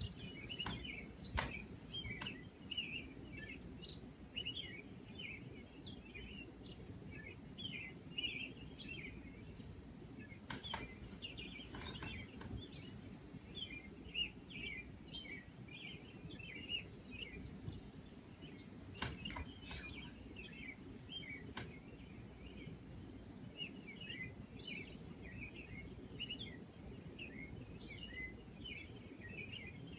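Many small birds chirping continuously in short, quick calls over a low steady background rumble, with a few sharp clicks.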